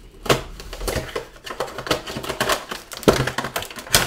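Action figure packaging being opened by hand: cardboard and a plastic tray handled and pulled apart in a run of irregular clicks, taps and crinkles, with a few sharper cracks.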